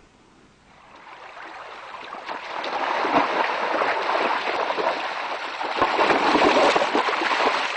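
Flowing stream water, fading in over the first couple of seconds and then running steadily, as a mountain bike rides through a shallow rocky stream, its tyres splashing through the water.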